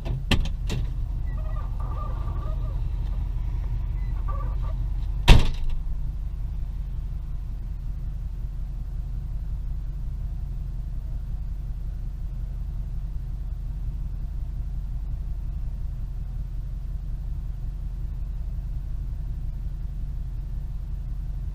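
Steady low rumble of a car running, heard from inside the cabin through the dash cam. A few light clicks come just after the start, and a single loud sharp knock comes about five seconds in.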